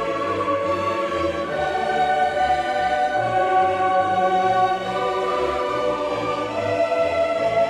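Background music: slow orchestral music with a choir holding long sustained chords.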